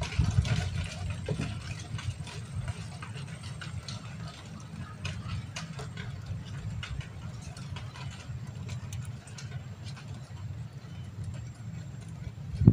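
Water lapping lightly against a small boat's hull, with scattered small clicks over a low, steady rumble.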